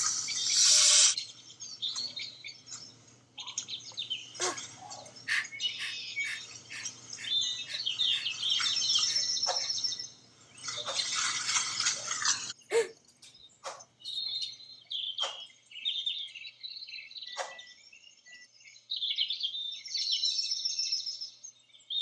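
Birds chirping and calling, many short chirps on a soundtrack of forest ambience. A loud hissing noise comes twice, for the first second and again for about two seconds near the middle.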